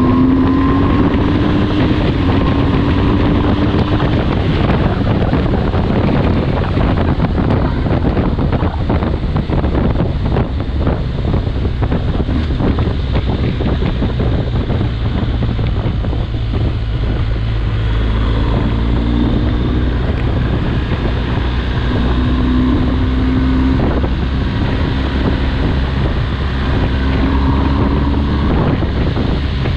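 BMW R 1250 GS boxer-twin engine running under way in fourth gear, with wind buffeting on the microphone. The engine's low drone stays steady while its pitch shifts a little near the start and again in the second half as the road speed changes.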